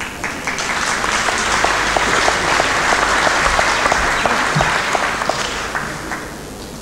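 Audience applauding, with an even beat of about three a second standing out through the middle, dying away near the end.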